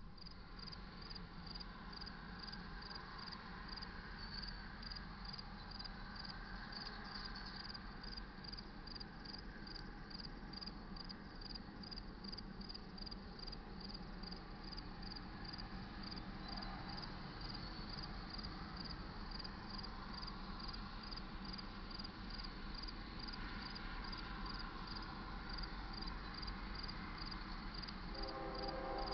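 Crickets chirping steadily, a high chirp repeating a little faster than twice a second, over a low outdoor hum. Near the end, a distant locomotive air horn starts to sound a chord.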